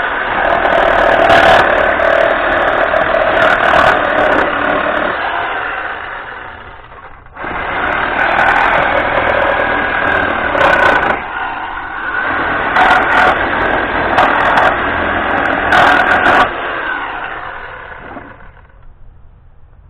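A power tool running while a wooden pallet is taken apart, in two long stretches: it dies away about six seconds in, starts again sharply and winds down near the end. Sharp cracks and knocks sound over it while it runs.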